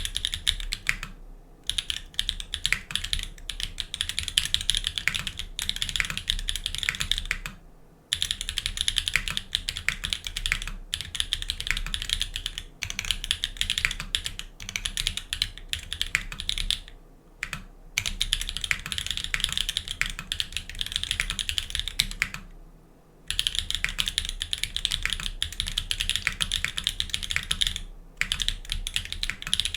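Steady, fast typing on a GEONWORKS F1-8X mechanical keyboard with lubed and filmed Everglide Dark Jade linear switches and GMK ASCII keycaps: a dense run of keystrokes broken by a few brief pauses.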